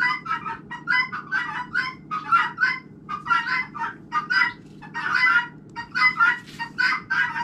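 Domestic fowl calling over and over, several short calls a second, over a steady low hum.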